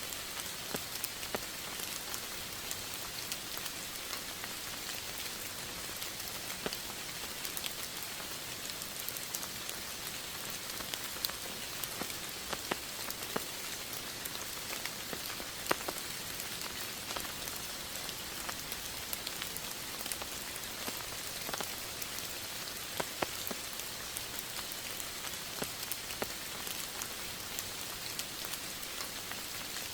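Steady rain, with many separate drops ticking close by over an even hiss.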